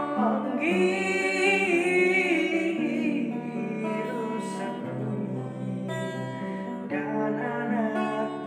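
Song ending: a voice holds a long sung note over guitar accompaniment, and the music carries on to the close.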